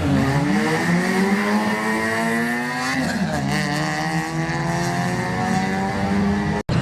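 Drag racing car accelerating hard, its engine note climbing, dropping at a gear change about three seconds in, then climbing again. The sound breaks off for an instant near the end.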